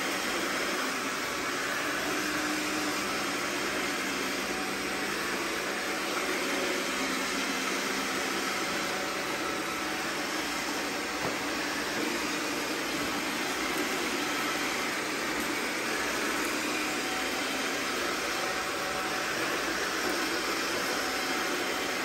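Two robot vacuums, a Roborock S4 and an iRobot Roomba 655, running at the same time on a tile floor: a steady whir of suction motors and spinning brushes as they sweep up confetti.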